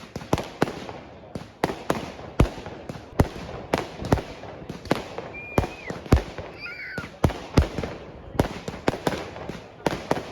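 Fireworks going off in a rapid, uneven string of sharp bangs, roughly two a second, over a continuous crackle.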